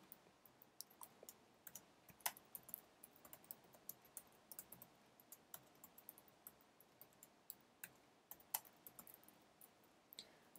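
Faint typing on a computer keyboard: irregular keystroke clicks, several a second, with short pauses between bursts.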